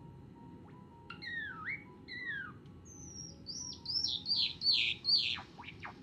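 Male white Java sparrow singing: two down-slurred notes, then a quick run of descending notes that is loudest about four to five seconds in, breaking into rapid sharp down-sweeping notes near the end.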